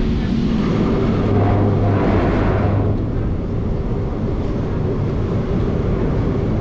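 A Lisbon Remodelado heritage tram heard from on board while it is moving: a steady low rumble of wheels on rails and running gear, with a low motor hum that is strongest a second or two in.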